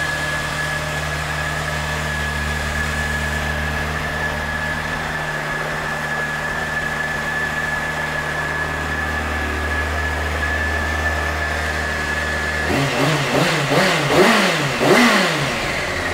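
Honda CBR600F4i's inline-four engine idling steadily. About three-quarters of the way through it is blipped several times in quick succession, each rev rising and falling, and it then settles back to idle.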